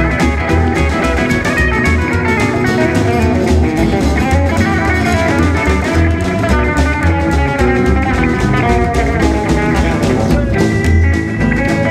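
Live rockabilly band playing, led by an electric guitar solo on a Gretsch hollow-body, with upright bass and drums behind it. Quick runs of picked notes, with a note held near the end.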